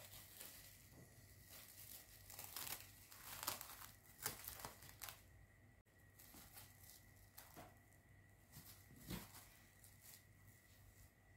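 Faint crinkling and rustling of plastic cling film as it is stretched over a bowl and pressed down by hand onto the surface of pastry cream. The rustles come irregularly, the loudest about three to five seconds in, with a sharp one near nine seconds.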